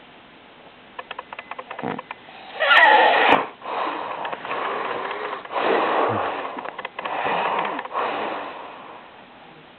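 A sleeping man snoring loudly and irregularly. A fluttering rattle comes first, then a loud burst about three seconds in, followed by several long, rough breaths of about a second each.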